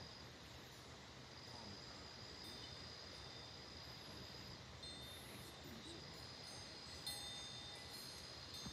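Faint wind chime tones ringing over a low hiss, with a clearer strike about seven seconds in that rings and fades.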